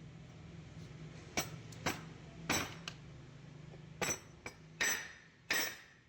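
Metal striking metal during alternator bearing work: about six sharp, ringing clinks at irregular intervals, over a faint low hum that fades about two-thirds of the way through.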